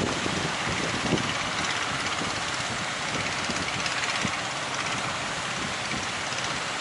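Strong wind buffeting the microphone over the steady rush of breaking waves, with irregular low thumps.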